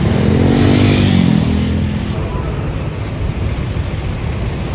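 A motor vehicle engine revs up and back down over the first two seconds, then keeps running with a rough, steady rumble.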